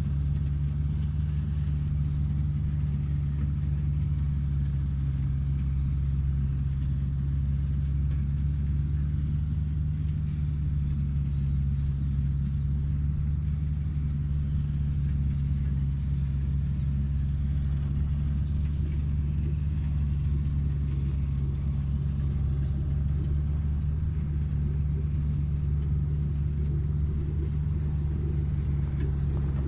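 Tractor engine running steadily at a constant speed: an even low rumble with a steady engine hum, and a thin high whine above it.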